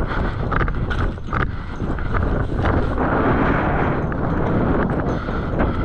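Wind buffeting the microphone, a dense steady rumble, with irregular scuffs and rustles of movement over it.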